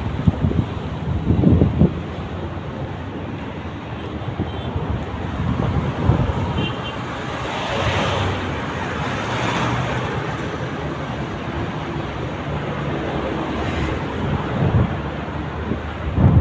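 Road traffic going by on a wide road, a steady rush of passing cars and trucks that swells about halfway through as a vehicle passes close, with wind buffeting the microphone now and then.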